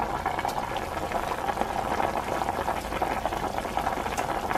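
Nimono broth of pork, daikon and kombu boiling hard in an aluminium pot: a steady, dense bubbling.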